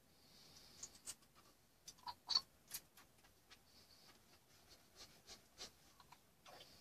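Faint scattered clicks and taps with a few brief soft hisses, from a plastic squeeze bottle of acrylic paint being handled and squirted, spattering drops onto the painted panels.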